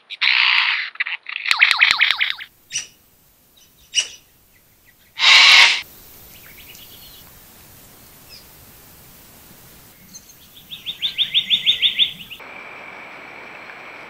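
Male superb lyrebird singing loudly in display, with a few dense bursts of song and scattered clicks in the first half. After a change of scene, a bird gives a rapid trill of about a dozen notes near the end.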